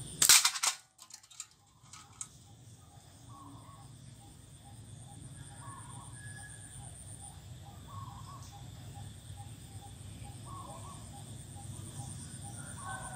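A sharp clatter in the first second: a steel ball from a bamboo slingshot gun striking an aluminium drink can on a stump. After it, a steady high insect drone and short bird calls every couple of seconds.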